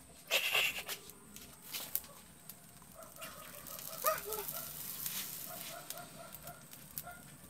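Chickens clucking: a short squawk about half a second in, then a run of soft, repeated clucks from about three seconds on, with one louder falling cluck near the middle. A few faint clicks sound among them.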